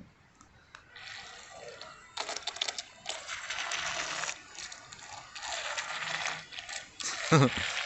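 Toy remote-control alligator boat running on a pond: its small motor and propeller churn the water in three bursts of about two seconds each as it is steered back and forth.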